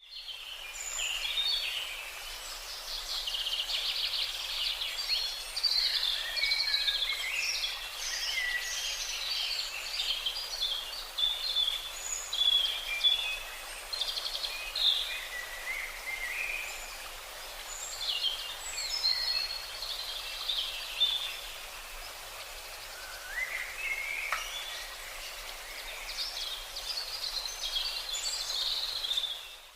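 Parrots chattering, a dense run of short high chirps and calls overlapping almost without a break.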